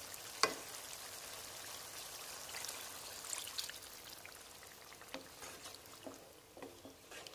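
Water poured into a pan of fried mutton pieces, a faint steady pour, then a wooden spoon stirring the meat in the water with light knocks against the pan. A single sharp knock of the spoon on the pan about half a second in is the loudest sound.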